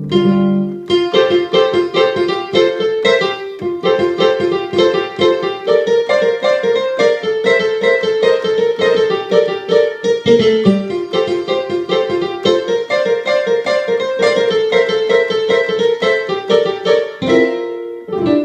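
Korg Krome synthesizer playing a piano patch from the Korg M1 sound set: a quick, busy run of notes with chords, several notes a second, with a brief break about two thirds of the way through.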